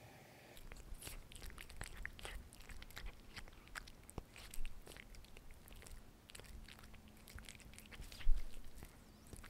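Russian Blue cat chewing and biting a piece of baked potato with the skin on: many quick, soft clicking and crunching mouth sounds starting about half a second in, with a louder thump near the end.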